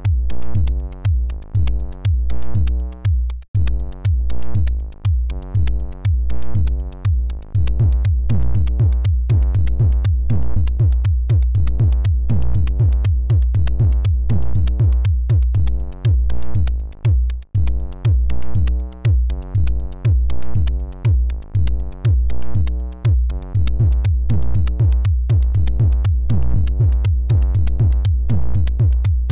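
Live-coded electronic music from the Glicol web synth: a drum-machine pattern of kick drum and ticking hi-hats in a quick, steady pulse, over sustained low synthesizer notes.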